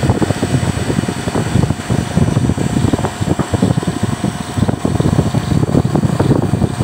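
Wind buffeting the microphone high up on a crane: a loud, irregular rumble, with a faint steady mechanical hum underneath.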